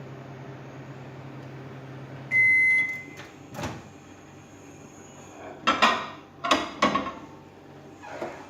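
Microwave oven running with a steady hum, which stops about two seconds in as a long beep sounds at the end of the cooking cycle. A sharp click follows, then a few clattering knocks.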